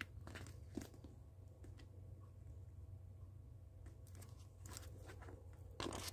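Faint rustles and soft clicks of Bible pages being handled and pinched between the fingers, a few scattered touches, most of them near the end, over a low steady hum.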